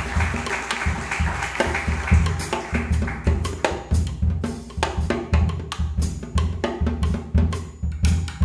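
Jazz quartet playing a samba, with the bass line and drum kit to the fore: a walking bass pattern under snare, bass drum and cymbal hits.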